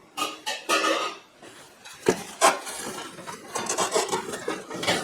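Silver-plated metal trays and dishes being handled and shifted: metal scraping and rubbing, with two sharp knocks about two seconds in.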